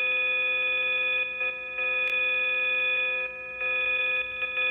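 LeapFrog Fridge Phonics toy playing a steady electronic ringing tone with a fast flutter through its small speaker, much like a telephone bell. The tone dips briefly in level a few times.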